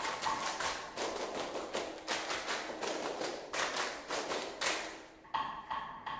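A group of children clapping in quick, even unison. About five seconds in, a steadier knocking beat with a ringing tone takes over, about three strikes a second.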